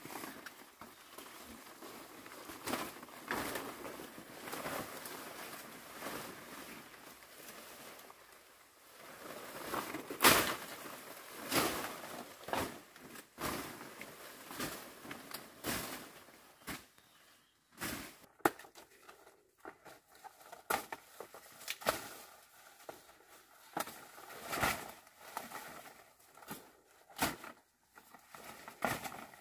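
Large dong leaves and their stalks rustling and crackling as they are picked and bundled by hand, with irregular sharp snaps. Later, footsteps and brushing through dense undergrowth.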